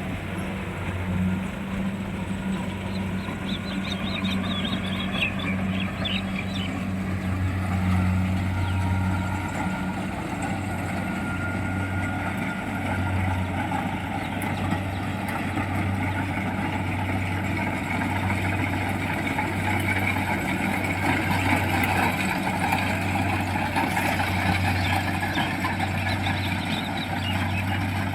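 Kubota 68 tracked combine harvester running steadily, its engine giving a low hum that pulses slightly under a broad mechanical rush.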